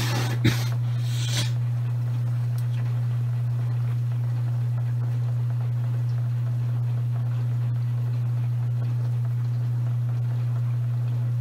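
Maytag front-load washing machine running mid-cycle with a steady low hum, with a few brief clatters in the first second or so.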